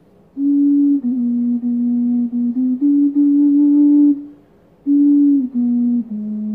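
Double bass G ocarina, a glazed ceramic vessel flute, playing a slow melody of low, nearly pure held notes. The playing starts about half a second in and pauses briefly for a breath near the middle.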